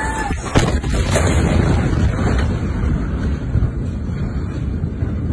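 Blast of a massive port explosion reaching a phone's microphone: a loud, overloaded roar with a sharp bang about half a second in that carries on for several seconds as the phone is shaken.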